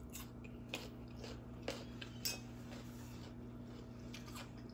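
A few faint, sharp clicks of a plastic fork against a dish during a meal, over a steady low hum.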